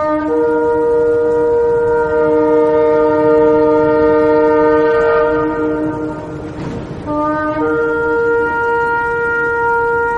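Shofar (ram's horn) blowing long, steady held blasts. The sound dips briefly about six and a half seconds in, then a new blast starts.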